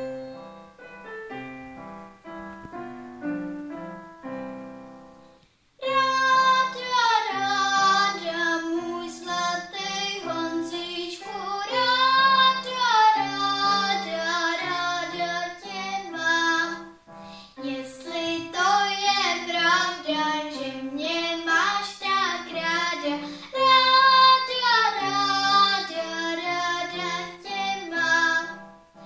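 A girl singing solo over an instrumental accompaniment. The accompaniment plays alone for about the first six seconds, then her voice comes in and carries the melody.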